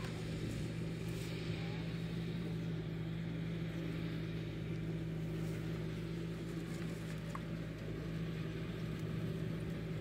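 An engine running steadily at an even pitch, a low drone that does not change.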